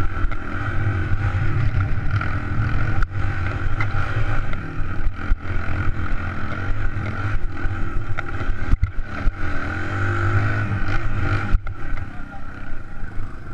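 Suzuki DR200's single-cylinder four-stroke engine running as the bike is ridden over a rough dirt trail, its revs rising and falling, with a few knocks from the rough ground. It eases off near the end as the bike slows.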